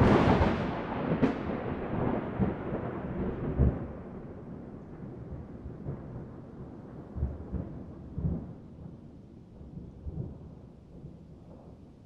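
Thunder: a loud crack right at the start and another sharp crack about a second later, then a long rolling rumble that slowly dies away, with several deep booms along the way.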